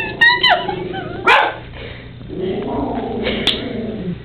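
Toy Manchester Terrier sounding off warily at a mounted rhino head: high, falling whines and yips at first, a single sharp bark about a second in, then a long low growl near the end.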